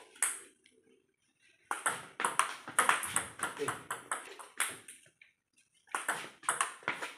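Table tennis rally: the ball clicking sharply off the paddles and bouncing on the table in a quick run of ticks. The clicks start about two seconds in after a short pause, stop briefly a little after five seconds, and start again near the end.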